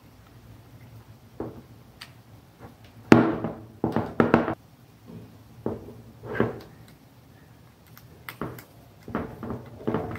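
Handling noise from wiring: a run of plastic knocks, taps and rattles as a plug-in relay and its socket are handled and a wire is fitted to a terminal. The loudest knocks come about three to four and a half seconds in, with more near the end.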